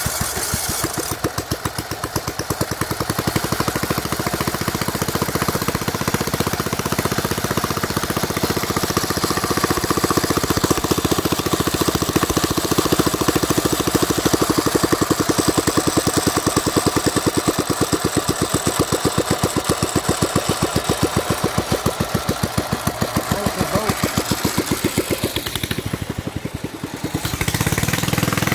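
Small engine of a homemade lawn mower running steadily, its firing pulses fast and even. About three-quarters of the way through it briefly drops off, then comes back louder.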